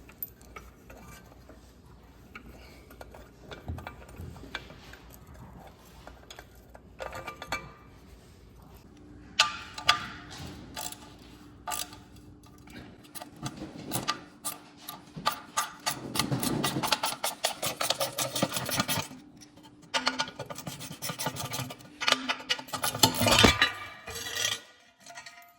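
Metal tools and bolts clinking, scraping and rubbing as a dirt bike's skid plate is unbolted with a 5 mm Allen wrench. Quiet handling at first, then a busier run of sharp clicks and clatter through the second half.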